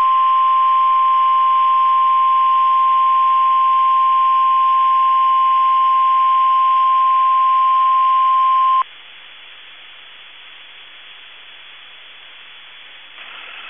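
NOAA Weather Radio warning alarm tone, the steady 1050 Hz test tone, sounding for about nine seconds before it cuts off abruptly. Only the broadcast's radio hiss follows.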